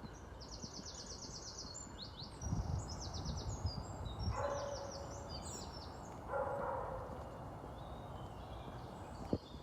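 Small birds singing repeated, rapid, high trilled phrases. Two longer, lower calls come near the middle, with some low thuds underneath.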